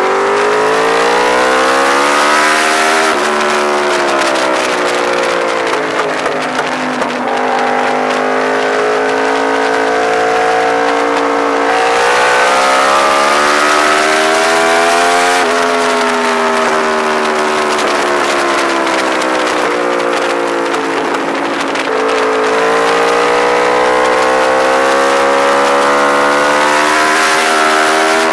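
Yamaha R1 sportbike's inline-four engine at track speed, the pitch climbing under hard acceleration and dropping sharply at three quick upshifts, then sinking slowly twice as the rider rolls off for corners, over a steady rush of wind.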